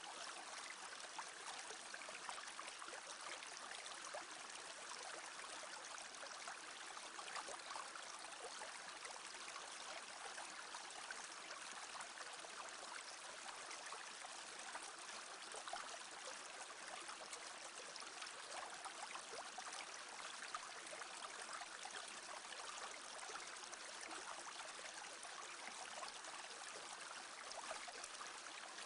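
A small brook babbling steadily, its water trickling and splashing over stones.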